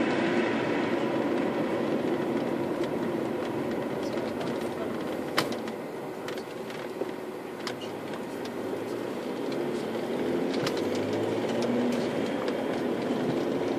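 Road and engine noise inside the cabin of an Audi A4 Avant TDI, a diesel estate, while driving. It eases off about halfway as the car slows for a roundabout, then rises again with a low steady engine hum as the car pulls away. A few sharp clicks sound over it, the loudest about five seconds in.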